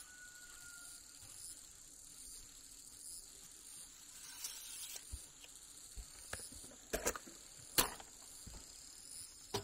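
Steady high-pitched insect chorus, with a handful of sharp knocks and clicks in the second half, the loudest about eight seconds in.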